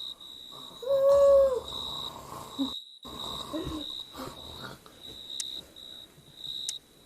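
A man's exaggerated snoring, with a loud hooting note on the breath about a second in and rougher breath sounds after it. A high chirping pulses steadily behind it.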